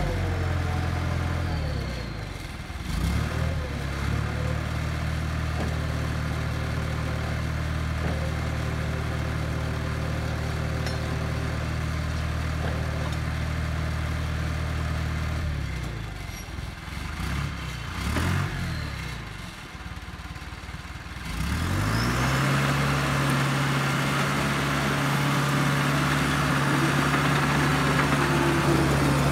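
International Dresser TD8E crawler dozer's diesel engine running at a steady speed, its note wavering and falling between about 16 and 21 seconds in. About 22 seconds in it revs up and holds a louder, higher note as the dozer drives off, with added mechanical clatter on top.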